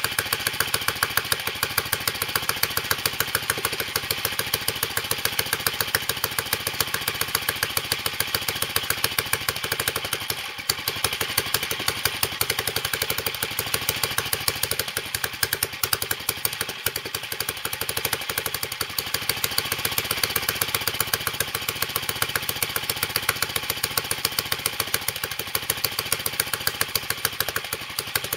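Single-cylinder 1944 J.A.P. Model 3 stationary engine running steadily after its first start following restoration, its exhaust firing in a rapid, even beat that briefly dips a couple of times; it runs rough, not particularly well, with its tuning not yet sorted.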